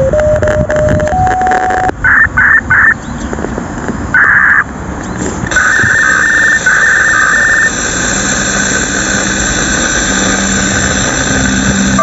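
Municipal disaster-prevention loudspeaker chimes heard outdoors from afar. The last slow notes of one chime melody end about two seconds in, followed by several loud, short, high calls in clusters. From about two-thirds of the way through, held tones lead into the next chime.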